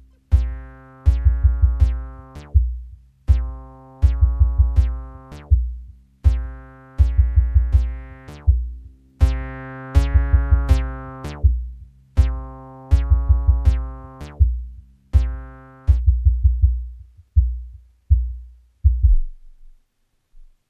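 Live electronic music on hardware synthesizers: a steady, pounding kick-drum pattern under repeated pitched synth chord stabs. About three-quarters of the way through, the chords drop out and the kick plays on alone briefly, then the music stops.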